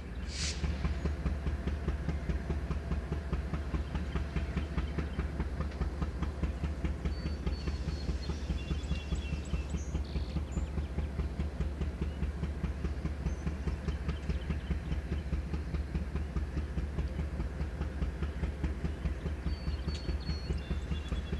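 Freight train rolling on the rails: a steady low rumble with a fast, even clatter of wheels, and a short hiss about half a second in.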